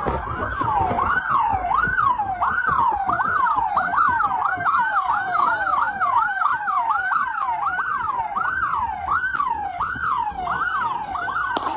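Police siren in a fast yelp, its pitch sweeping up and down about twice a second, over a low rumble, with a sharp click near the end.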